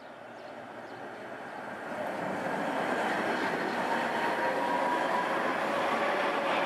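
Tatra T4D tram set approaching and passing close by, its wheels rolling on the rails, growing louder over the first two or three seconds and then holding steady, with a faint steady whine above the rolling noise.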